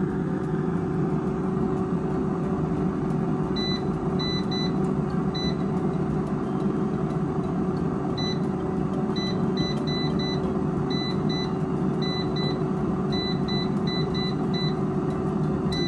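Cosori air fryer running with a steady fan hum, while its touch-panel buttons give about twenty short high beeps in quick runs as the cooking time is raised.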